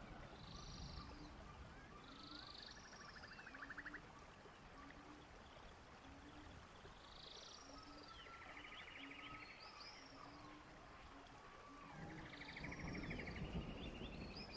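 Faint outdoor birdsong: several short arched chirps and buzzy trills from birds, over a soft low call that repeats about every three-quarters of a second.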